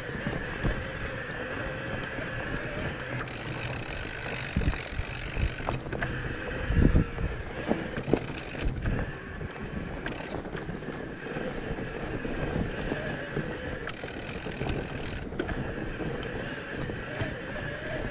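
Mountain bike rolling along a rough trail: steady tyre and running noise with wind on the microphone. Short knocks and rattles come from bumps throughout, the heaviest jolt about seven seconds in.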